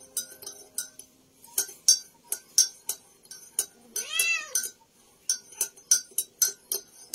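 Metal spoon stirring coffee in a ceramic mug, clinking against the side a few times a second. A cat meows once about four seconds in and again right at the end.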